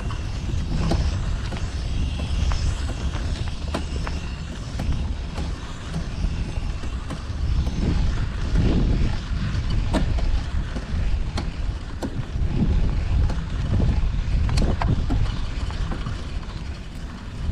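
Riding a bicycle through city traffic: steady low rumble of wind on the microphone and road noise, swelling louder twice as traffic passes. Scattered sharp clicks and creaks come from the bike.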